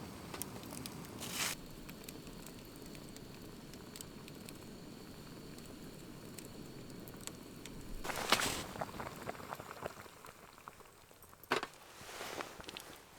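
Food bubbling and simmering in a pot over a campfire, a steady crackly bubbling. A louder rush of noise about eight seconds in, and two shorter ones near the end.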